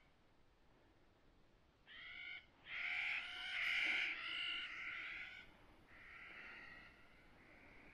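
An animal calling: a few short calls about two seconds in, then a louder run of overlapping calls, trailing off into weaker calls after about five seconds.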